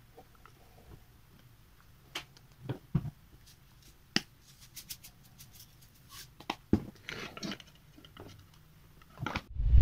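Scattered light clicks and taps of a small spice jar and its cap being handled over a plastic mini food chopper, with a short rattle about seven seconds in.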